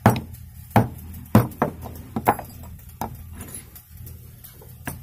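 Hand hammer striking a steel part on a block, five sharp blows in the first two and a half seconds, knocking a jammed piece through a hole in the oil expeller part. Then a few lighter knocks as the tools are set down.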